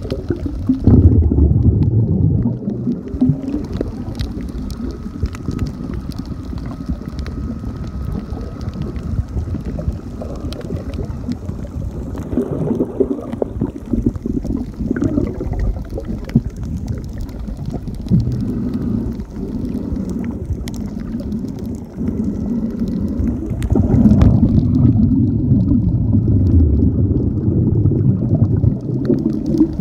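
Underwater sound picked up by a camera below the surface while snorkeling: muffled rumbling and gurgling of moving water, loudest about a second in and again over the last few seconds.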